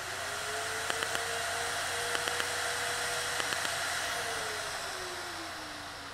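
Built-in smoke evacuator of a Quanta Fresco fractional erbium laser running with a steady whine while the microspot handpiece fires three sets of three quick pops, a little over a second apart, into a wooden tongue depressor. About four seconds in, after the last set, the evacuator winds down and its whine falls in pitch.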